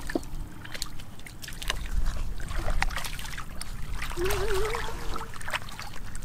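Shallow muddy water splashing and trickling as hands and a small wire scoop net are worked through it, with many small splashes and drips. A brief wavering tone sounds a little past the middle.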